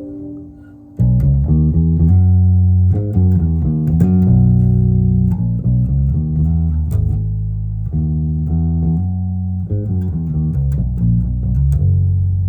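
Six-string electric bass (Ibanez BTB866SC) played through an Ampeg BA-115 combo amp. A note fades out at the start, then from about a second in come loud, deep sustained notes and riff passages.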